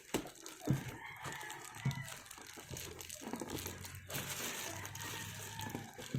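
A rooster crowing in the background, with packaging crinkling and a few sharp clicks as it is handled.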